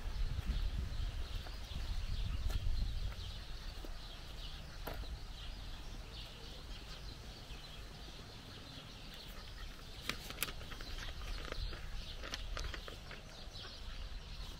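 Birds calling and chirping over a steady outdoor background, with footsteps on a gravel path and a low rumble in the first few seconds.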